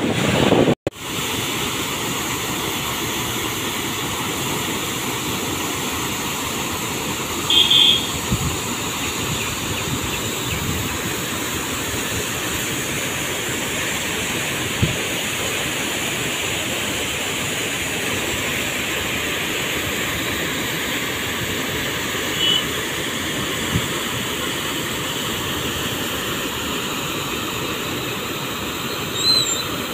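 Steady rushing and splashing of large jets of water pouring from big pump discharge pipes into a canal, with a brief dropout about a second in.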